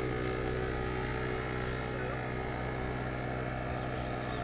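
Portable 12-volt air compressors running steadily while inflating tires, a constant motor drone with an even pitched hum.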